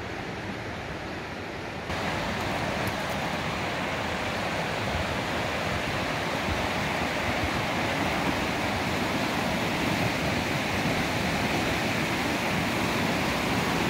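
A fast mountain river rushing over whitewater rapids, a steady rush of water. It jumps louder about two seconds in, then slowly swells as the deck over the rapids draws nearer.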